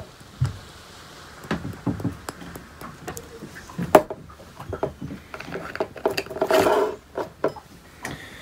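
Light knocks and clicks of a glass spice jar and a drink tumbler being handled on a wooden table, with one sharper knock about four seconds in as the jar is set down. A brief squeaky pitched sound comes about six seconds in.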